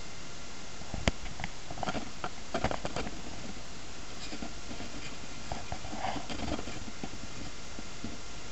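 Handling noise: a sharp click about a second in, then scattered light taps and rustles, over a steady hiss.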